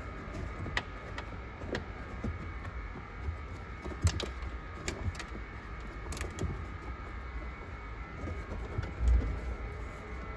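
Scattered sharp clicks and light knocks of hands working behind a car's carpeted trunk trim and its wiring harness, with a heavier dull thump about nine seconds in, over a steady hum.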